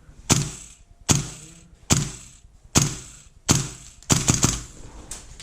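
Airsoft rifle firing single shots, a sharp crack about every 0.8 seconds, then three quick shots a little after four seconds in.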